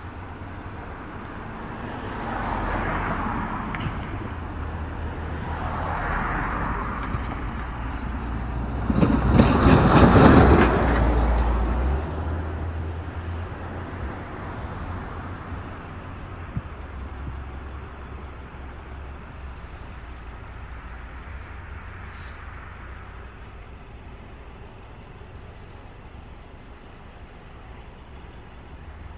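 Road vehicles passing close by. Two swell and fade a few seconds apart, then a louder one passes about ten seconds in and fades away slowly, over a steady low rumble.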